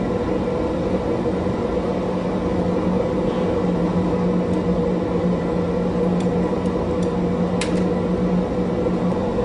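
Steady mechanical hum of glassblowing studio blowers, with a few light clicks of hand tools on glass and metal in the second half.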